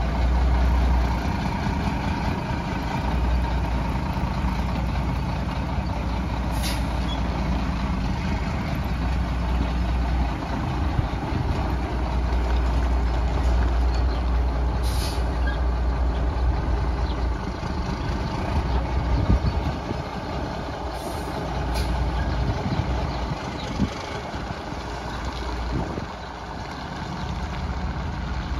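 Mack RD roll-off truck's diesel engine running as the truck pulls away, growing fainter in the last part. A few brief hisses of air, typical of the truck's air brakes, are heard along the way.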